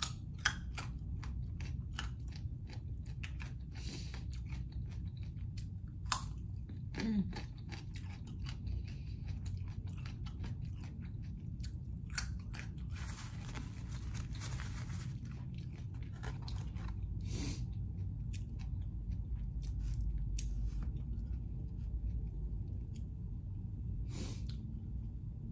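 Close-up chewing and crunching of raw carrot sticks: repeated crisp crunches and wet mouth clicks over a steady low hum.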